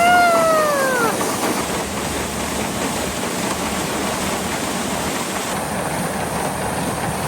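A woman's short falling cheer about a second long, then the steady running noise of the tractor driving the SuperB grain dryer, mixed with wind.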